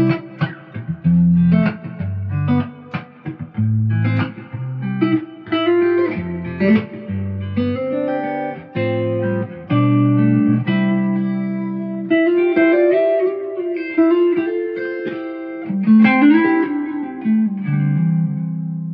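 Electric guitar, a Fender Telecaster played through a JK Amplifiers Oxygen valve preamp, playing picked chords and single-note lines. A last chord about sixteen seconds in is left to ring and fades out.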